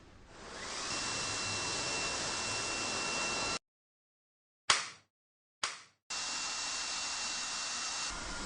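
Cordless handheld vacuum cleaner (REDROAD 17) switched on, its motor spinning up over about a second to a steady high whine, then cutting off suddenly. Two sharp clicks of the switch follow, and the motor starts again at once at full speed.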